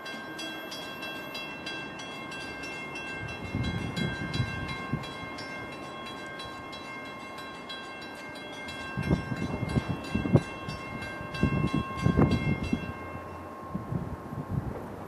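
Railroad grade-crossing warning bell ringing with rapid, evenly spaced strikes, signalling an approaching train, and stopping shortly before the end. Gusts of wind buffet the microphone several times.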